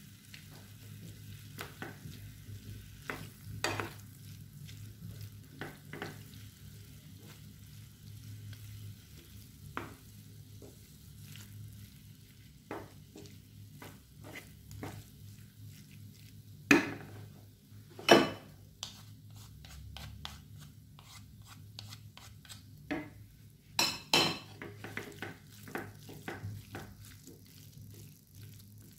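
Wooden spatula stirring and mashing cauliflower in tomato sauce in a nonstick frying pan: repeated soft scrapes and knocks against the pan over a faint sizzle, with a few louder knocks in the second half.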